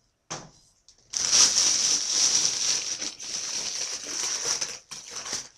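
Wrapping crinkling and rustling as a beer glass is unwrapped, starting with a short rustle and then running on in a dense crinkle for about four seconds before dying away.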